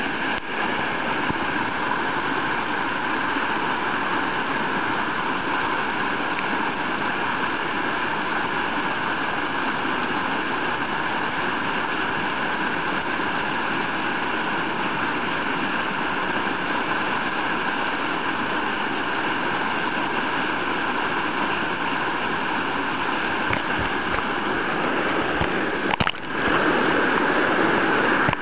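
Whitewater of a river standing wave rushing steadily, close to the microphone. Near the end there is a brief dip and a few knocks, and the rush grows a little louder.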